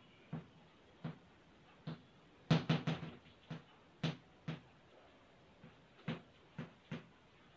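Chalk tapping and scraping against a blackboard as numerals are written: a string of short, sharp taps at irregular intervals, with a quick run of four about two and a half seconds in.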